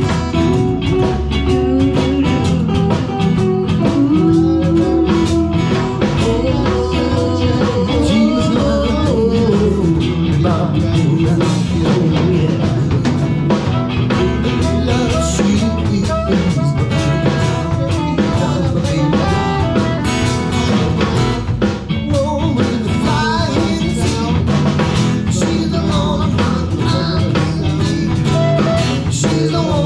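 A live blues band playing an instrumental break: a guitar lead line with bent notes over a drum kit beat.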